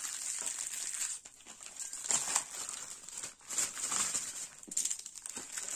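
Plastic zip-lock bags and the small plastic packets of diamond-painting drills inside them crinkling and rustling as they are handled and pressed flat, in irregular rustles with a few small clicks.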